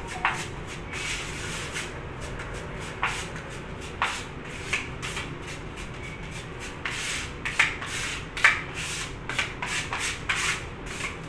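A putty knife scraping and spreading putty on a flat board in repeated strokes. The strokes are spaced out at first and come quicker, about two a second, in the second half.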